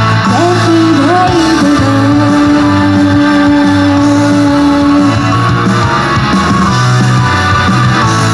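Live J-pop idol song through the PA: a woman's voice sings a bending phrase, then holds one long note and stops about five seconds in, over a rock-style backing track with guitar and a steady bass beat that carries on after the voice ends.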